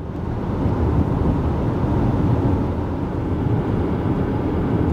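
Steady road and wind noise inside a moving SUV driving on a highway, fading in over the first second and then holding level.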